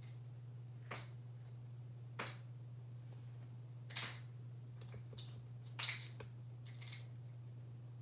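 A small clear plastic cup knocked and set down on a bathroom countertop by an African grey parrot: about half a dozen light, separate clacks, the loudest about six seconds in. A steady low hum sits underneath.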